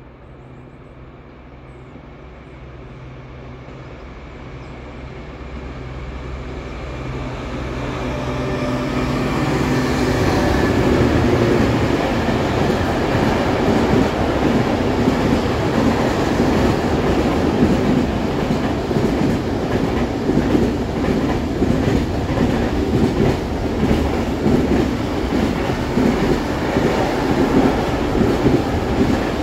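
Intermodal freight train of container and swap-body wagons approaching and then running past close by. A low steady hum grows louder over the first ten seconds as it nears, then the wagons go by with a loud, continuous noise of wheels on rails.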